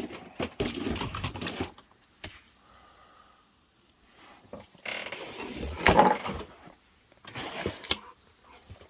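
Cardboard and plastic packaging being handled and opened: irregular rustling and scraping with a sharp knock about six seconds in.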